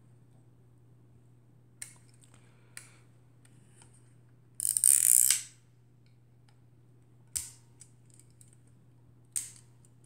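Winding and shutter mechanism of a Voigtländer Vitomatic IIIb 35 mm camera with its Prontor leaf shutter set to 1/500 s: several separate sharp clicks and, about halfway, a louder rasping burst lasting about a second, as the camera is cocked and fired with the back open.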